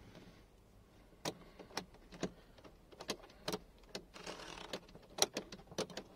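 Plastic louvers of a Maruti Suzuki Wagon R dashboard AC vent clicking as they are pushed by a finger: a dozen or so irregular sharp clicks, with a brief scrape about four seconds in. The vent's repaired linkage is moving freely again.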